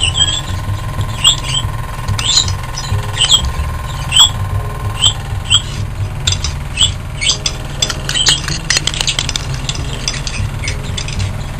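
Birds chirping about once a second over the steady whirring drone of a worn-out exhaust fan, with a quick run of light clicks about two-thirds through.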